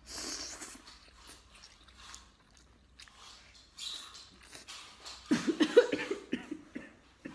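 Close-miked biting and wet chewing of braised oyster meat pulled off a skewer. A louder run of mouth noises comes a little past five seconds in.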